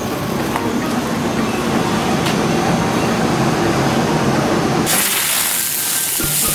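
A steady rumbling rush of noise. About five seconds in it gives way suddenly to a bright, hard hiss as a ground bloom flower firework's fuse catches and starts spraying sparks.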